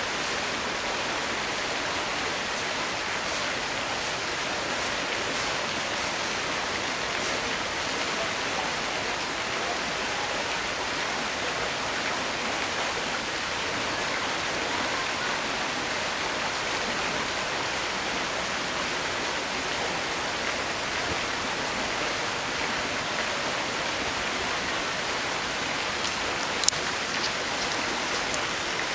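Steady rush of running water, an even hiss with no breaks, with one sharp click near the end.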